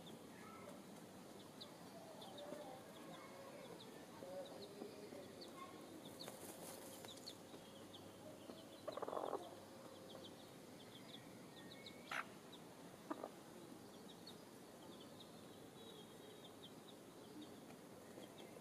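A hen dust-bathing in loose soil and mulch: mostly quiet, with a half-second rustling shake of feathers and dirt about halfway through and two sharp ticks a few seconds later, over faint high chirps of small birds.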